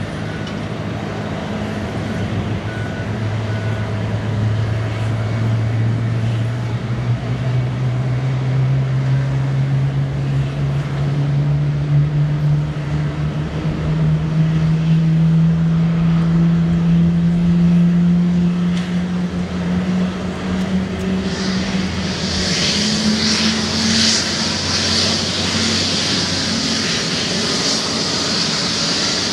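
Boeing 777-300ER's GE90-115B jet engine starting: a hum climbs slowly and steadily in pitch as the engine spools up, and about three-quarters of the way in a loud high hiss joins it as the engine comes to life.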